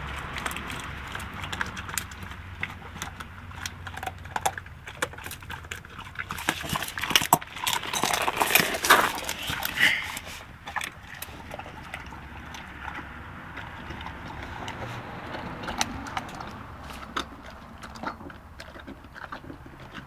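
Alapaha bulldog eating raw meat: a run of wet chewing, smacking and clicking sounds, busiest and loudest in the middle.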